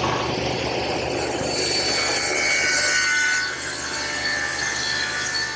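Table saw, its blade tilted to 30 degrees, running steadily as it cuts a bevel along a narrow strip of wood, the motor's hum under the cutting noise.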